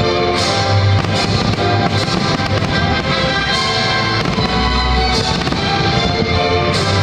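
Loud music for a pyromusical fireworks display, with fireworks bursting and crackling over it.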